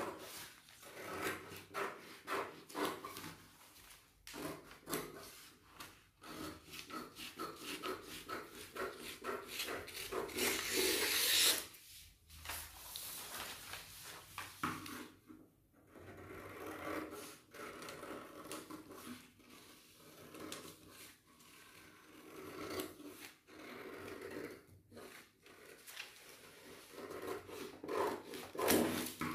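Scissors cutting a paper pattern along a traced line: a long run of short snips with paper rustling, and a louder rustle of handled paper about ten seconds in.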